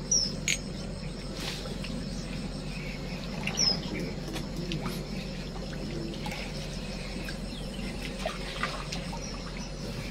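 Lakeside outdoor ambience: a steady low hum under faint background noise, with a few short high chirps and scattered small clicks.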